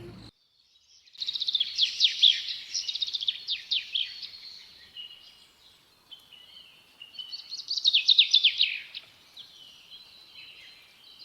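Songbird singing outdoors in two bursts of rapid, falling high notes, the first starting about a second in and the second around eight seconds in, with quieter chirps between.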